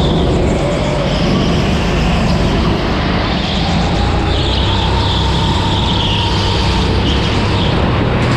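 Go-kart engine running hard through a lap, heard from onboard the kart, its pitch rising and falling as the driver works the throttle through the corners.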